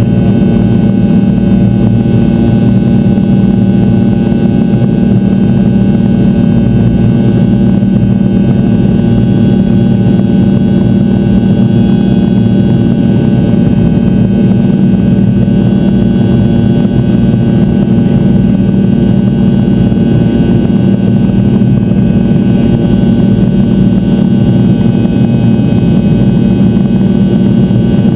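Rolls-Royce Tay 650-15 turbofan of a Fokker 100 running steadily in flight, heard from inside the cabin right beside the rear-mounted engine: a loud, even drone with several steady tones over it.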